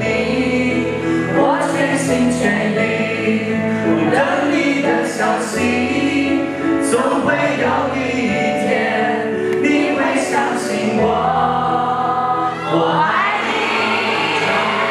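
A man singing a Mandarin pop ballad live into a handheld microphone, over instrumental accompaniment with held chords and a bass line that changes note every second or two.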